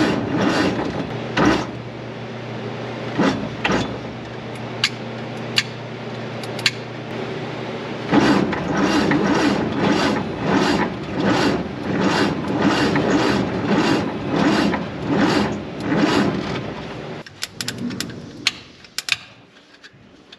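The 1948 Chevy 3100's 216 inline-six is cranked over on the starter with the distributor cap off, turning over in an even rhythm without firing while the ignition points are checked. The cranking stops near the end, followed by a few light clicks and rattles from hands working at the distributor.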